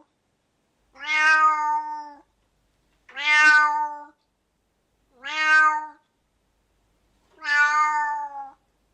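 A cat meowing again and again: four long, drawn-out meows of steady pitch, about two seconds apart.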